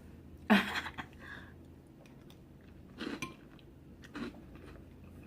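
Close-up eating sounds while eating chunky soup: a sharp utensil-and-dish sound about half a second in, then softer chewing and mouth sounds around three and four seconds in.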